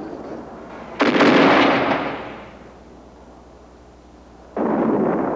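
Gunfire: a loud shot about a second in that rumbles away over about a second and a half, then another sudden shot near the end.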